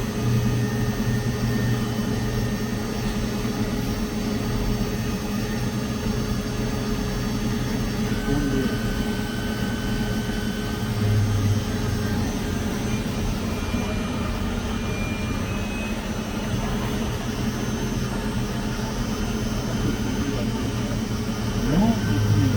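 Tormach CNC lathe running: a steady electric hum and whine from the spindle and drive motors, swelling slightly about eleven seconds in and again near the end.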